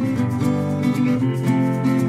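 Background music led by guitar, with notes and chords changing at a steady pace.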